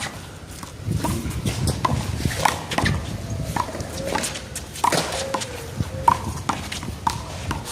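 One-wall handball rally: a small rubber handball slapped by hand and rebounding off the wall and pavement, a string of sharp smacks about a second apart with lighter knocks between.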